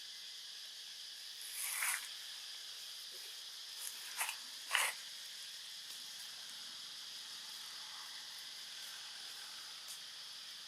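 Three short monkey calls: the longest comes about two seconds in, and two quicker ones follow close together a little after four seconds. A steady high hiss runs underneath.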